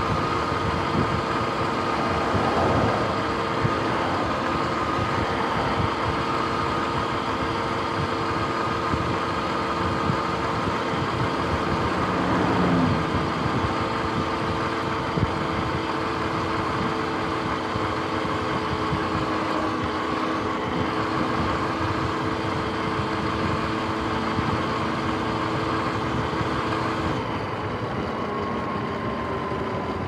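Sur-Ron X electric dirt bike riding on pavement: a steady whine from the motor and drivetrain over wind rush and road noise. Near the end the whine eases and falls in pitch as the bike slows.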